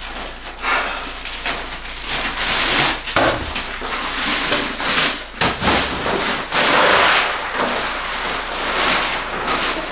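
Bagged ice cubes being emptied and worked into a bathtub of cold water: an irregular rattling and crackling of ice, with splashing and a few sharp clatters.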